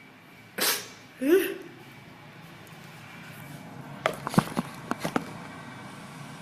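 A woman sneezes: a sharp, noisy burst of breath about half a second in, followed by a short voiced sound that rises in pitch. A quick run of sharp clicks follows around four to five seconds in.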